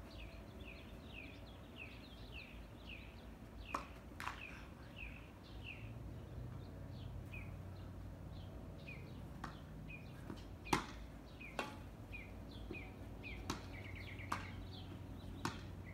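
Sharp, scattered hits of rackets on a ball during a doubles rally, about eight in all, the loudest about eleven seconds in. Under them a bird gives short downward chirps again and again, a few each second.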